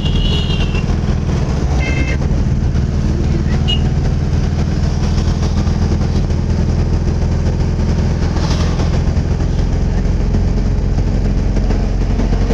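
Vehicle engine and road noise heard from inside the moving vehicle's cabin: a steady low drone under a rough rumble. A few short high-pitched tones sound at the very start and about two and four seconds in.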